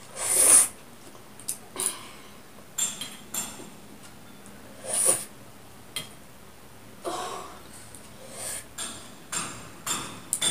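A person eating very spicy noodles: slurping noodle strands and drawing short, sharp breaths at irregular intervals, with a few light clinks of a fork against a steel bowl.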